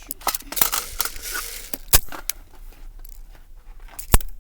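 Airsoft guns being handled: scattered clicks and rattling, with two sharp snaps about two seconds apart, one about two seconds in and one near the end.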